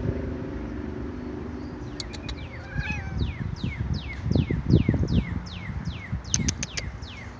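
A songbird singing an evenly repeated series of quick downslurred whistles, about three a second, beginning a couple of seconds in, with a few short high ticks among them. Low thumps and rumble, like wind on the microphone, sound underneath.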